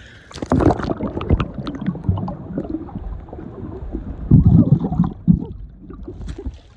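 Muffled water sloshing and gurgling, with irregular knocks and a louder surge about four and a half seconds in.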